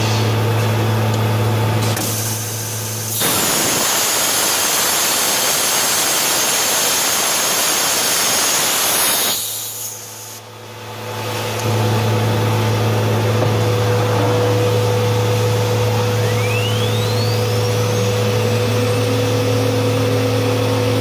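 Woodworking CNC router running with a steady low motor hum. About three seconds in, a loud rushing noise takes over for about six seconds, then stops. The hum returns, and later a whine rises steeply in pitch, as of a motor spinning up.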